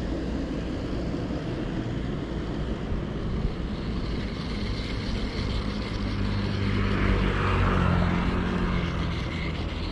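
A steady engine drone with a low hum, growing louder about seven seconds in and easing off near the end.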